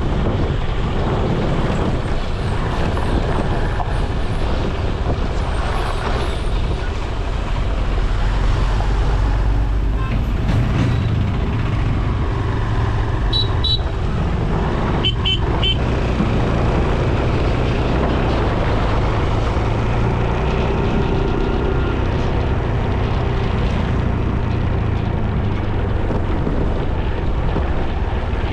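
Steady road noise from a moving vehicle: an engine running with wind on the microphone. About halfway through, a horn gives two short bursts of toots.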